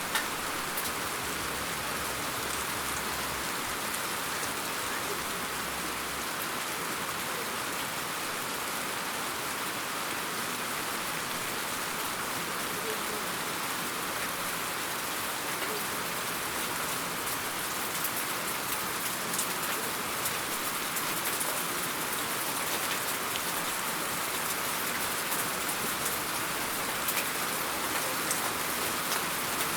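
Steady rain falling: an even hiss with scattered sharper raindrop ticks, which come more often in the second half.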